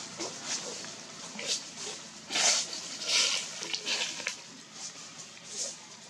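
Dry fallen leaves rustling and crackling in short, irregular bursts, about half a dozen in all, as macaques shift about on the leaf litter.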